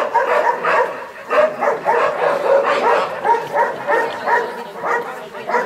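A dog barking rapidly and without pause, about three to four barks a second.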